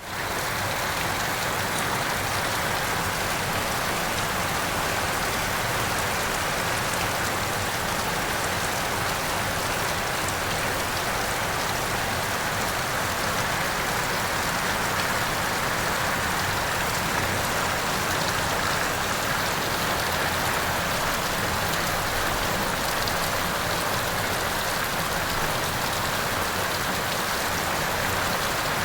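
Heavy rain falling steadily, an even hiss of drops on the ground and hard surfaces.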